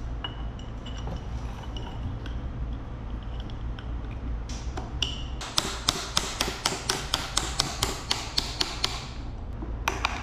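Rapid light metal-on-metal tapping, about five taps a second for some three seconds in the second half, after a couple of single clicks: hand work on the piston assembly of a Yamaha DT175 two-stroke engine being secured.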